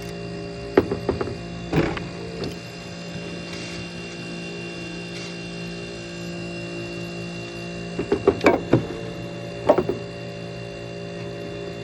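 1970s Carrier 5200 BTU window air conditioner humming steadily, its reciprocating compressor running while the fan has not yet started. Sharp knocks and rattles come about a second in and again in a cluster between about eight and ten seconds.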